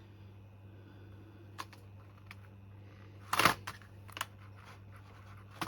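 Scattered small clicks and taps from handling a Bluetooth keyboard, with one louder clatter about three and a half seconds in, over a steady low hum.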